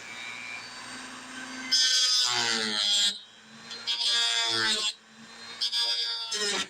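Power sander smoothing a fiberglass repair on a plastic tractor grill: a steady hum with repeated falling squeals as it is worked over the surface.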